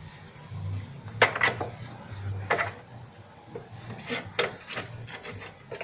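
Hands fitting wire terminals and the plastic start relay back onto a refrigerator compressor: several sharp clicks and snaps of the connectors among rubbing and rustling.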